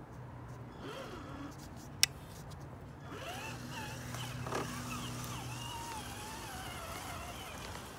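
Traxxas TRX-4 RC crawler's electric motor and geared drivetrain whining as it climbs, the pitch wavering up and down with the throttle. A single sharp click about two seconds in.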